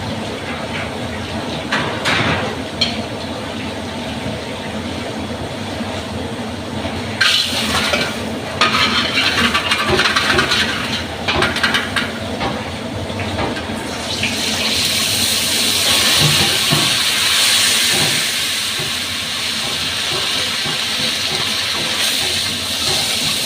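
Kitchen sounds: a steady low rumble with occasional clicks, then several seconds of clattering knocks, then a steady loud hiss from a little past halfway.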